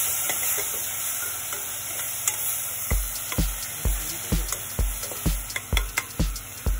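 Tomato and cashew paste sizzling in hot oil in a steel pot while a spoon stirs it. About halfway through, a regular low thumping starts, about two a second.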